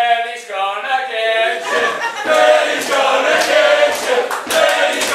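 Crowd of wrestling fans chanting in unison, the first notes drawn out, with hand claps joining in during the second half.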